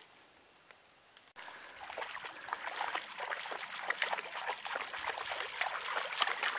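A dog wading through shallow lake water, its legs splashing in quick, uneven steps. The splashing begins suddenly about a second and a half in.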